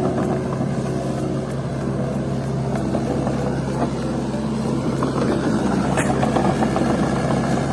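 Steady engine-like running hum of a truck, even in level throughout, with a few faint clicks on top.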